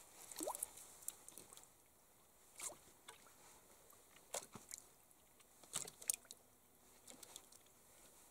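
Faint splashes and drips of river water as a long wooden stick is poked and worked in among sunken logs, in a few short, sharp strikes, the sharpest about six seconds in.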